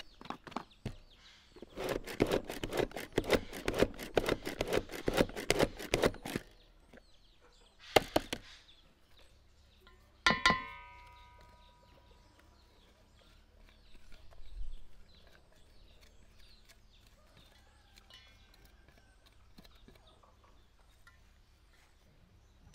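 Hand-operated pull-cord food chopper chopping onion in quick strokes, a rapid plastic clatter for about four seconds. About ten seconds in comes a single clank on the enamel basin that rings briefly.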